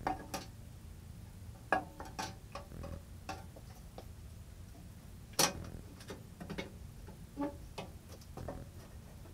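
Scattered clicks, clinks and light knocks of metal table-saw parts being handled and fitted during assembly, at irregular intervals, with one louder knock about five and a half seconds in.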